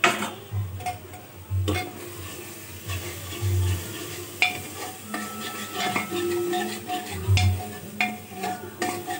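Spoon stirring and scraping masala in an open aluminium pressure cooker, knocking against the pot now and then, while the masala sizzles as it fries.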